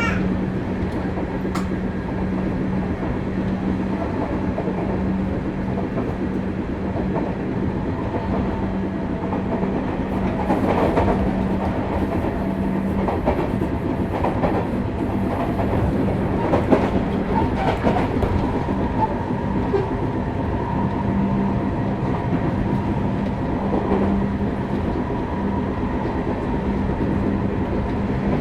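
Sotetsu New 7000 series electric train with Hitachi GTO inverter, heard from inside motor car MoHa 7357, a car noted for its unusual motor noise, running at speed. A steady low hum carries through, and wheels clack over rail joints in bunches in the middle.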